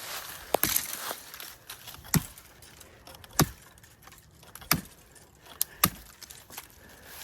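Chopping at brush and branches to clear a path: five sharp blows about a second apart, with rustling of twigs and leaves between them.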